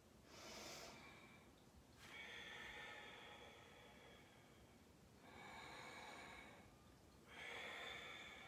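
Faint, slow human breathing: four long, hissing breaths in and out as the yoga instructor moves into and holds a balancing pose.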